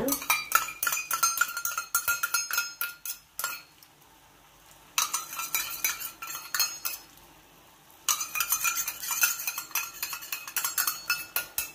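A metal spatula scraping and clinking against a wok as rice vermicelli is stirred in shallow broth, with a ringing metallic tone. It comes in three bouts of quick strokes with short pauses between them.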